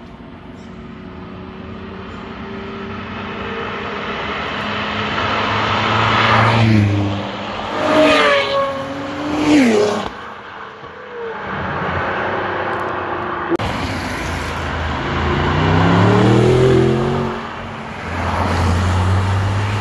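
A convoy of cars, supercars among them, driving past one after another. The engine sound builds, then several cars pass loudly with their pitch dropping as they go by. A little over halfway through, another car accelerates with its engine note climbing.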